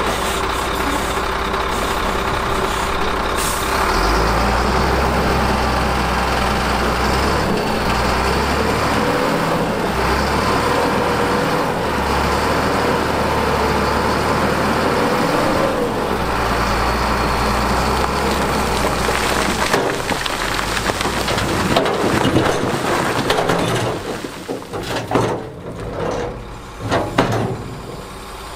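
Heavy diesel dump truck engine running steadily with a deep rumble. Later it eases off and gives way to scattered knocks and clatter.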